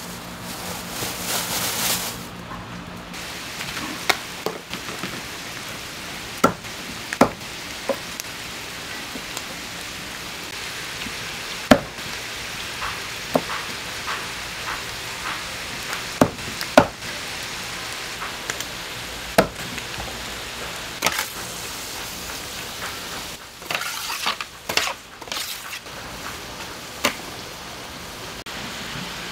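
Pork parts sizzling on a large iron griddle: a steady frying hiss, louder for the first couple of seconds, broken by sharp knocks every few seconds and a quick run of them near the end.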